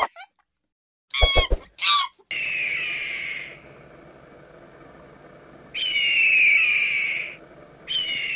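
Two short high squeaks, then a bird of prey screaming three times, each a long falling cry about a second and a half long, over a faint steady outdoor background.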